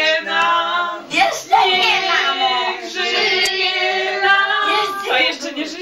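People singing a birthday song together, a child's voice prominent among them, the singing breaking off near the end.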